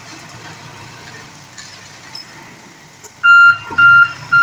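Diesel dump truck's engine running at low idle, then about three seconds in its reversing alarm starts: loud, evenly spaced single-tone beeps, about two a second, three of them before the end.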